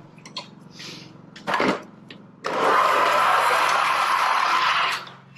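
A strip of aluminum trim coil being cut with a slitter run along a bending brake: a steady rasping noise lasting about two and a half seconds, starting abruptly about halfway through. It is preceded by a few light clicks and a short scrape.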